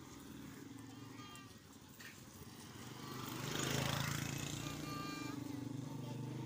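A small motorcycle's engine running as it comes up close, its steady hum growing louder from about three seconds in.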